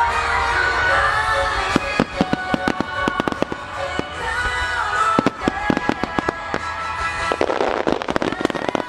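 Fireworks going off in rapid succession, a string of sharp bangs starting about two seconds in and thickening near the end, over music.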